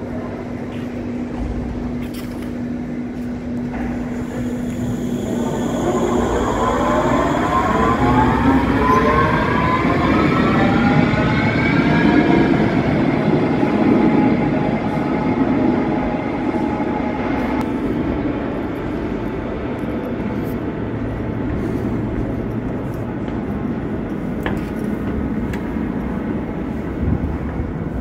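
Electric light-rail train (Stadtbahn car) pulling away along an underground platform. Its traction motors whine in several pitches that rise together over about six seconds, then level off and fade, over a steady rumble of wheels on rail.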